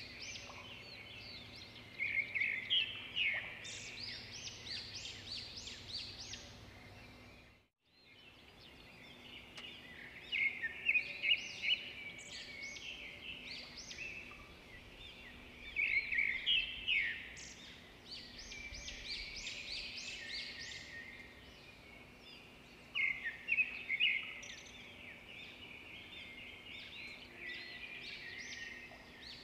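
Songbirds singing in woodland: a loud, rapid song phrase every five to seven seconds over quieter chirping from other birds. The sound drops out completely for a moment about eight seconds in.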